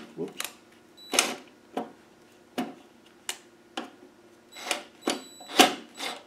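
Cordless drill-driver run in a series of short spurts, driving small screws into a plastic heater housing, with clicks and knocks from the plastic casing between spurts.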